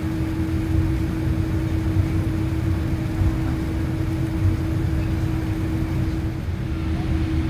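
Cabin noise of a Boeing 787-8 Dreamliner taxiing, its General Electric GEnx-1B engines at idle: a steady low rumble with a constant hum.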